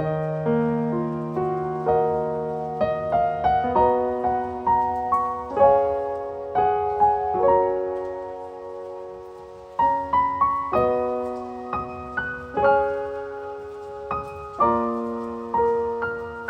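Background music: a slow, gentle solo piano piece, notes and chords struck and left to ring and fade.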